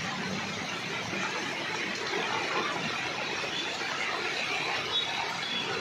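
Heavy rain falling on a flooded road, a steady hiss, with car tyres swishing through the standing water and swelling a little as a car passes in the middle.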